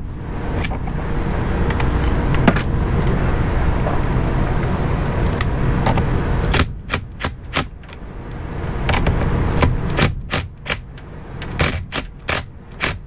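Sharp metallic clicks and clinks of hand tools, a quick irregular series from about halfway through, as the car battery is being reconnected. Over a steady low rumble that eases off about halfway.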